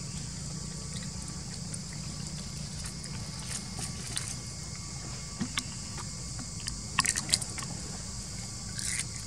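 A macaque biting and chewing a cucumber: scattered sharp, crisp crunches, loudest in a quick cluster about seven seconds in.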